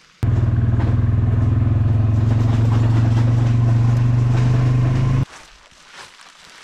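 Four-wheeler (ATV) engine running at a steady, even speed, cutting in just after the start and cutting off suddenly about five seconds in.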